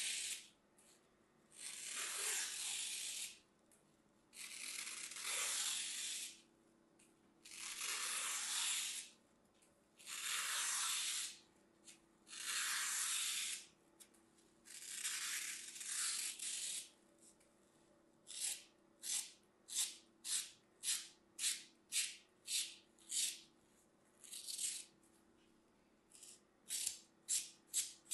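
A thin blade slicing through dry green floral foam with a crisp, gritty scraping. Long slow cuts come about every two and a half seconds at first; from about eighteen seconds in they give way to quick short chops, a little under two a second, as small cubes are cut off a strip.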